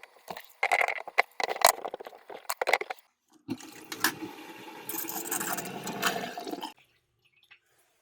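Quick clattering knocks, then water running in a kitchen sink for about three seconds before cutting off suddenly.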